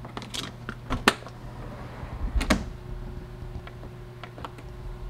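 Dishwasher being loaded and started: sharp plastic clicks and knocks as the detergent dispenser is filled and snapped shut and the door is closed, the loudest about a second in and halfway through, then soft ticks of the control-panel buttons being pressed. A faint steady hum sets in after the loud knock.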